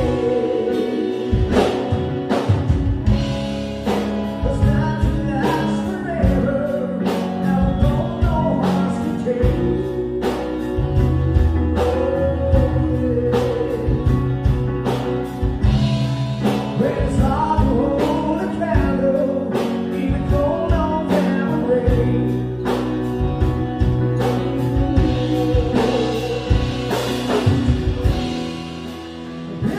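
Live rock band playing a slow song: male and female voices singing over electric guitar, bass, keyboards and a drum kit keeping a steady beat. The music drops briefly in loudness near the end.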